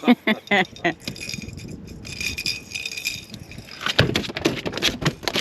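Rattling and clinking of fishing gear being handled as tangled lines are worked free, with a quick run of sharp knocks and clatter from about four seconds in.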